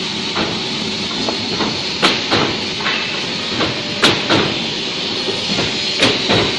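Automatic wood cutting machine running with a steady mechanical hiss, broken by sharp knocks about every two seconds, each followed by a lighter knock.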